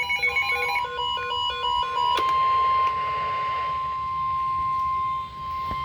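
A short electronic chime of quickly stepping pure tones, then, about two seconds in, the NOAA Weather Radio warning alarm: a single steady tone near 1050 Hz held for about four seconds, signalling that a warning message follows.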